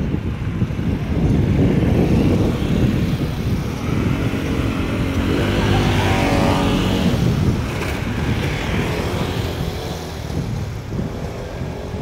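Street traffic: a motor vehicle's engine passes about halfway through, its pitch rising and then falling, over a steady low rumble.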